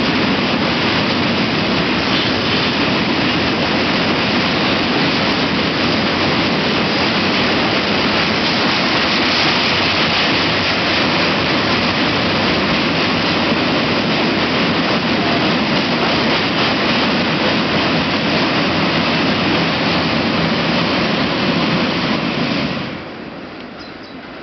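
Freight train hauled by a 060DA diesel-electric locomotive rolling past close by: a loud, steady rushing noise that drops off sharply about 23 seconds in.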